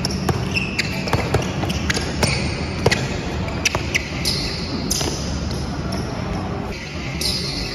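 Basketball being dribbled on an indoor court: a run of sharp, irregular bounces as a player works a one-on-one move.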